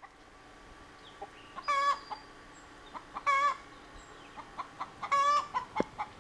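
Chickens calling: three wavering calls about a second and a half apart, with short soft clucks in between.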